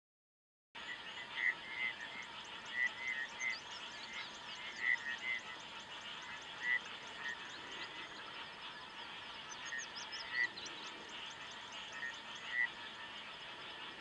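A dense chorus of frogs calling: a steady trilling din with louder short notes standing out every second or two, and faint high upward chirps over it.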